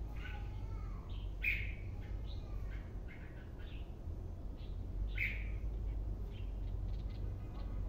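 Caged red-whiskered bulbul singing: short chirps and whistled notes, with two louder notes about a second and a half in and again about five seconds in, over a steady low background hum.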